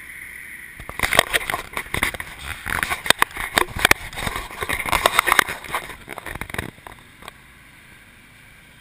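Camera microphone being handled and rubbed against skin and clothing, making irregular knocks and scrapes for several seconds. It then settles to a quieter, steady rush of passing street traffic.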